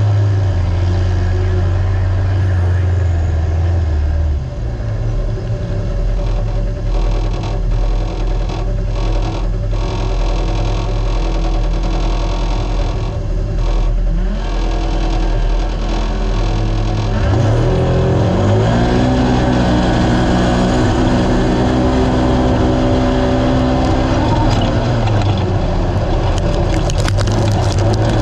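Naturally aspirated UTV engine running hard under racing throttle, its note rising and falling with the throttle; the pitch climbs sharply about two-thirds of the way through and eases off again near the end, over a steady rush of wind and terrain noise.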